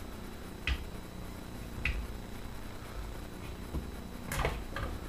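Sharp clicks and light knocks from the stock and steel receiver of an airsoft AK being worked apart by hand. There are single clicks about a second in and about two seconds in, and a quick cluster of clicks near the end.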